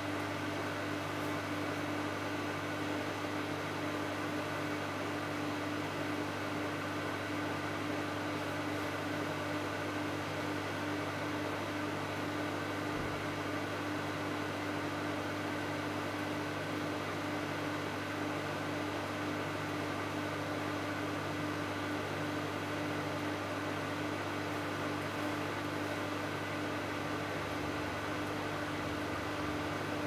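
Microwave oven running as it heats a dish of custard pudding: a steady, unchanging hum with a constant tone over an even hiss.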